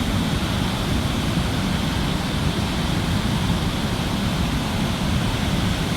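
Steady roar of Victoria Falls' falling water, with wind rumbling on the microphone.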